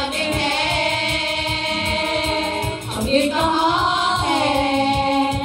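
A girls' choir singing together into microphones, holding long notes in two phrases with a short break about three seconds in. An electronic keyboard accompanies them with a steady beat underneath.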